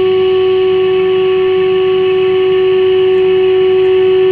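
A Fleetwood 1061 valve radio's loudspeaker sounding a steady, loud single test tone: the modulation tone of a signal generator's 600 kHz test signal, tuned in during dial alignment. Its steady presence shows the set is receiving the generator at the calibration mark.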